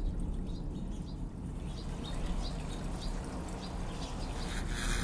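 An animal chirping in a steady series of short high calls, about two or three a second, over a low steady rumble; a louder rushing noise comes in near the end.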